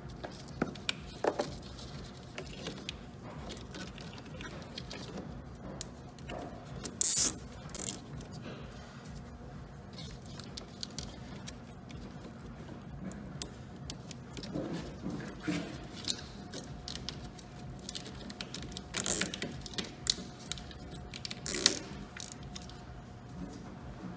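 Plastic cable ties being pulled tight around a truck's headlight wiring harness: three quick ratcheting zips, the first about seven seconds in and the loudest, among small clicks and rattles of handling.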